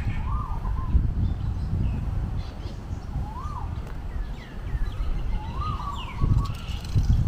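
Birds calling outdoors: short rising-and-falling notes, repeated every second or two, with a few fainter high chirps. A loud low rumble runs underneath.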